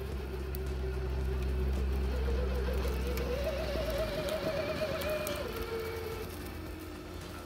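Electric motor whine of an Axial SCX6 1/6-scale RC rock crawler, rising in pitch about two seconds in, holding, then dropping back near the end as the throttle changes, with a few faint clicks.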